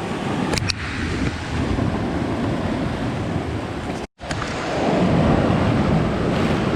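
Ocean surf washing against the shore rocks, with wind buffeting the microphone. The sound cuts out completely for a moment about four seconds in, then the surf comes back slightly louder.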